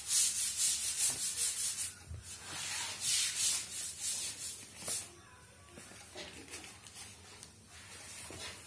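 Sheets of paper rustling and rubbing as they are handled and turned close to the microphone: a quick run of scratchy rustles in the first two seconds, slower louder rustles until about five seconds in, then only faint ones.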